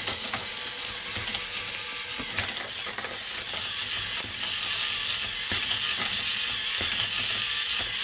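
K'nex ball machine running: a dense, steady clicking and rattling of plastic parts and balls, which gets louder about two seconds in.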